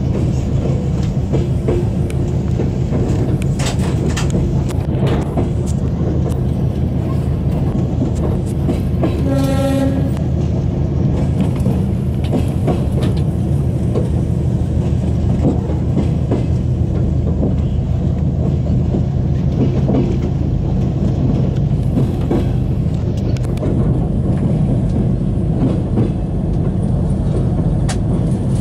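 Steady rumble of a train running on rails, heard from aboard, with occasional wheel clicks. About nine seconds in, one short horn blast of under a second sounds over it.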